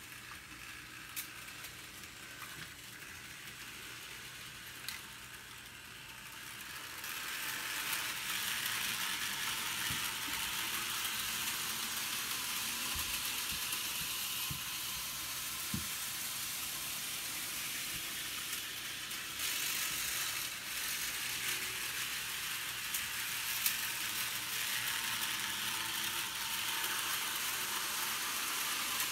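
HO-scale model train running around the track, a steady whirring hiss of its motor and wheels on the rails. It gets louder about seven seconds in, with a few faint clicks.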